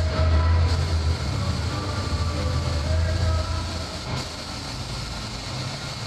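Gravity-feed paint spray gun hissing with compressed air as paint is sprayed onto a car body, over a steady low rumble that drops away about four seconds in.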